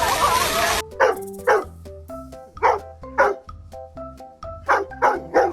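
A dog barking in single sharp barks, about seven of them, some in quick pairs, over light background music made of short, bouncy notes. It comes after a brief noisy stretch that cuts off under a second in.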